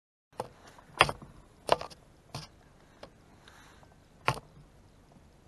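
About six irregular knocks and thumps, as of gear being handled aboard a plastic kayak, the loudest about a second in, near two seconds and past four seconds, over a faint steady hiss.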